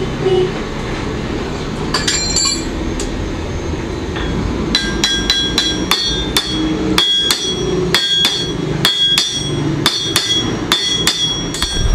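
Blacksmith's hammer striking hot metal on an anvil: a brief flurry of ringing blows about two seconds in, then steady ringing strikes about two to three a second from about five seconds in, over a muffled low background.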